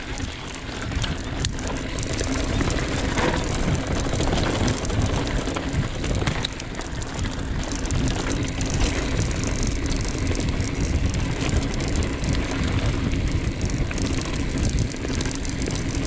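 Mountain bike riding along a dirt singletrack: a steady rumble of tyres on the trail, with many small clicks and rattles from the bike.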